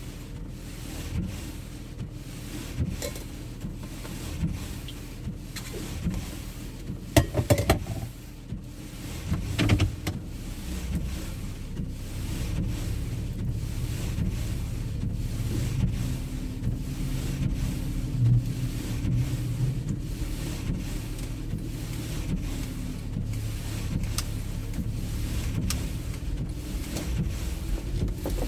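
Car driving on a snowy road, heard from inside the cabin: a steady low rumble of engine and tyres, with a few sharp knocks about seven to ten seconds in.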